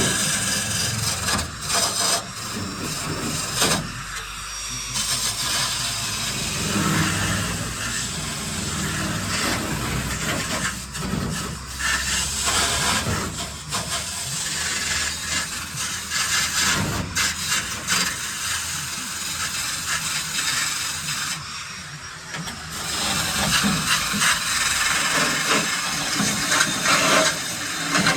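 A power tool running against sheet steel, with its sound rising and falling unevenly as the load changes.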